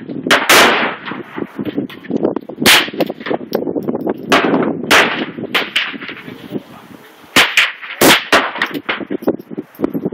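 A Ruger 10/22 semi-automatic .22 LR rifle firing single sharp shots, about half a dozen at irregular intervals a second or more apart.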